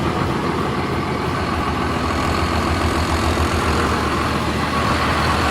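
Heavy vehicle engine running steadily with an even low rumble.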